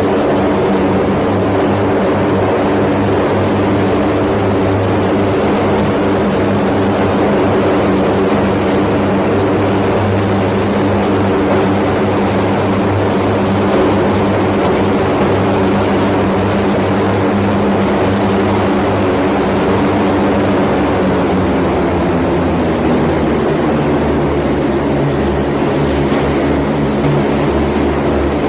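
Lockheed C-130J Super Hercules turboprop engines running steadily as the aircraft taxis: a deep, even propeller drone with a thin high whine above it. The low drone shifts in pitch about three-quarters of the way through.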